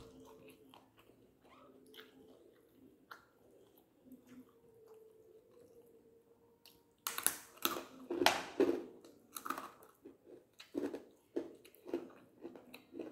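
A person chewing string hoppers and curry close to the microphone: mostly quiet at first, then a loud run of mouth clicks and bites about seven seconds in, settling into chewing about twice a second. A faint steady hum sits underneath.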